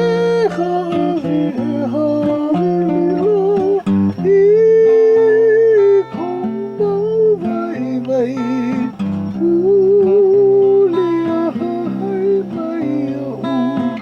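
A Hawaiian hymn performed to acoustic guitar, with a voice holding long, wavering notes over the strummed chords.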